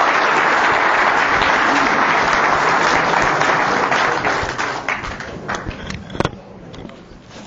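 Audience applauding at the close of a talk: a full, steady round of clapping for about four seconds, then thinning to scattered claps and dying away near the end.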